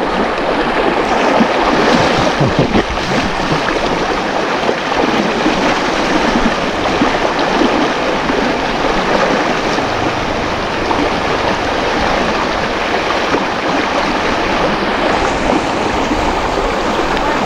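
Fast, shallow river rapids rushing in a steady, loud wash of water.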